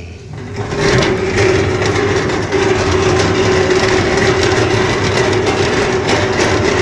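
Fuel transfer pump running steadily with a fast clatter and a steady hum, pumping drained jet fuel out of a drum up into a tanker truck. It comes up to full running about a second in.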